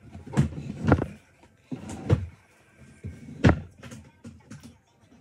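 Drawers and cupboard doors being handled and shut: about four sharp bangs with lighter knocks and clattering between them.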